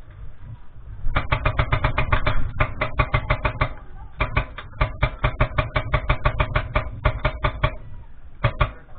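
Airsoft rifle firing on full auto: two long bursts of rapid, evenly spaced shots and a short burst near the end.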